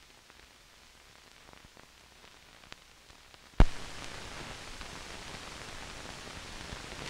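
Surface noise of an old film-to-video transfer's soundtrack with no programme sound: a very faint low hum, then a single sharp click about halfway through, after which a steady hiss sets in.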